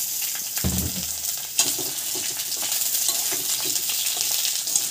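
Bamboo shoot pieces sizzling in hot oil in a kadhai, stirred with a metal spatula that scrapes against the pan. A dull knock sounds about a second in.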